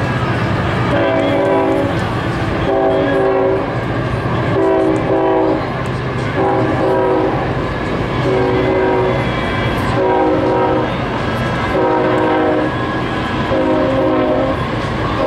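Diesel freight locomotive's air horn sounding a long series of short blasts, each a chord of several notes, about one every two seconds, over the steady low rumble of the passing train.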